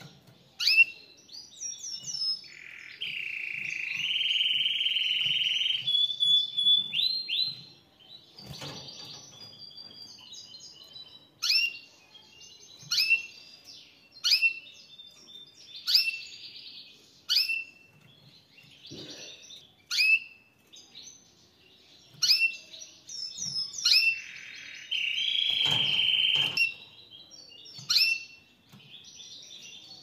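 Domestic canary singing: short, sharp sweeping chirps about every one and a half seconds, broken twice by a long rolling trill lasting a few seconds, once a few seconds in and once near the end.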